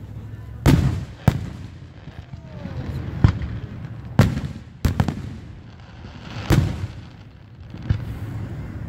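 Aerial fireworks shells bursting overhead: about seven sharp booms at irregular intervals, each with a short low rumble after it.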